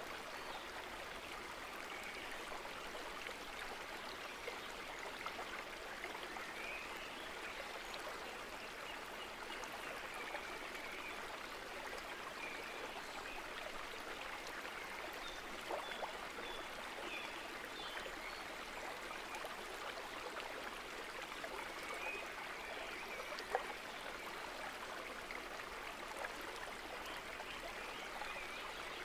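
Steady rushing water like a stream, with a few faint short high chirps and an occasional click.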